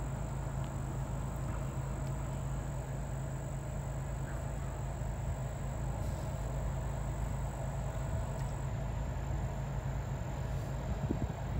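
Steady low outdoor rumble with a faint constant high-pitched whine, and no distinct events.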